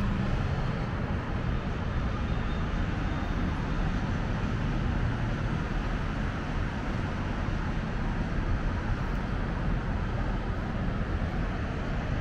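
Steady, even rumble of distant city traffic from the busy road bridge below, with no single vehicle standing out.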